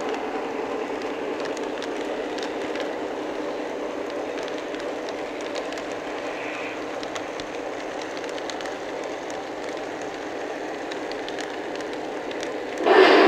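Model train rolling along its track: a steady running rumble with faint wheel clicks, swelling loud briefly near the end.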